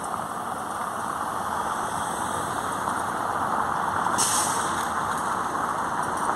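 Motor vehicle engine running, growing slightly louder, with a short hiss of released air about four seconds in, like air brakes.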